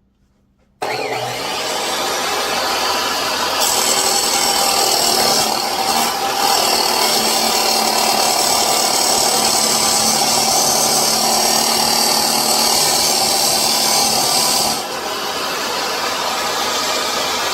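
Chop saw fitted with a 10-inch DeWalt abrasive metal-cutting wheel starting up about a second in, then the wheel grinding through a thick piece of metal with a harsh high hiss from about three and a half seconds. The grinding eases near the end while the motor keeps running.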